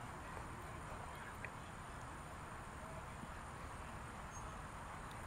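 Quiet outdoor ambience: a steady high insect drone over a low rumble, with one faint click about a second and a half in.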